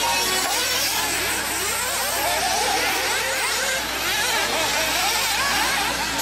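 Several radio-controlled 4x4 off-road buggies racing, their motors overlapping in a steady whine that keeps rising and falling in pitch as they accelerate and brake.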